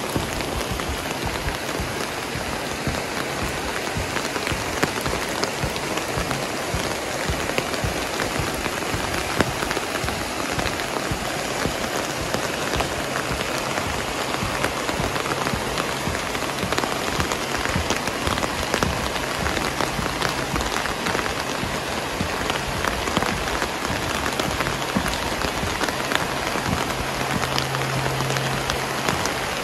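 Steady rain falling, with many separate drops ticking close by.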